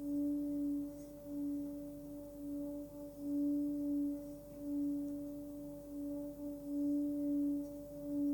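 A 15.7 cm hand-forged Tibetan singing bowl, pitched between C sharp and D, ringing steadily with a fainter higher overtone. The tone swells and fades about once a second without dying away.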